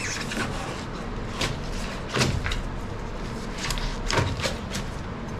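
Chunks of waterlogged foam being tossed down into the boat's hull, landing with a series of irregular knocks and thuds, about seven in all. The loudest come a little after two seconds and about four seconds in.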